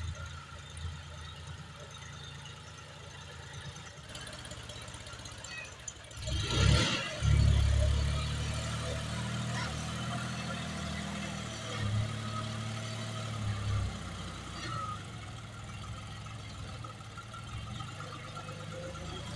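John Deere loader tractor's diesel engine running as the loader pushes and lifts sand. A short rush of noise a little over six seconds in, after which the engine is much louder under load, then settles to a steadier run after about fourteen seconds.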